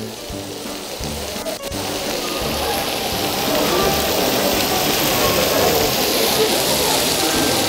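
Onions, garlic and sliced peppers sizzling as they fry in olive oil in a frying pan, the sizzle growing steadily louder.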